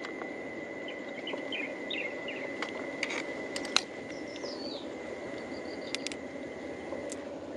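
Outdoor ambience: an insect holding a steady high tone over a low background hiss, with a few short bird chirps. A handful of sharp clicks come from the opened mussel shell and pearls being handled, the loudest a little under four seconds in.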